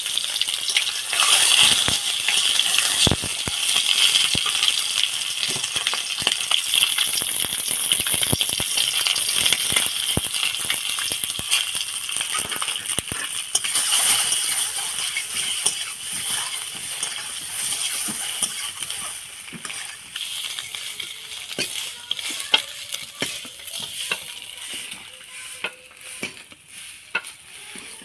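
Food sizzling in hot oil in a pan while being stirred, with frequent clicks and scrapes of the spoon against the pan. The sizzle is strongest in the first half and dies down over the last third.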